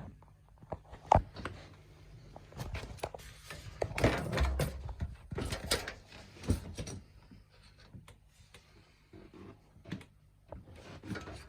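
Scattered knocks, clicks and rustling of objects being handled, with a sharp knock about a second in.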